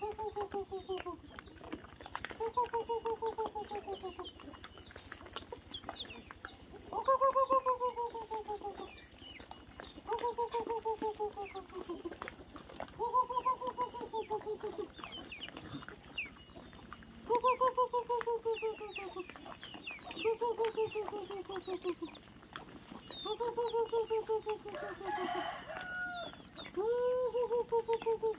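A chicken calling over and over: a pulsing call that falls slightly in pitch, repeated about every two to three seconds, with faint high chirps between.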